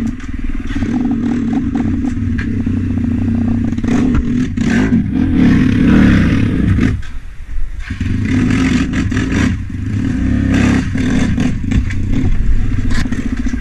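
Dirt bike engines running, one revving as a green dirt bike is pushed and heaved over rocks at a stream crossing, with clattering knocks. The engine sound swells around five to six seconds in and drops briefly about a second later.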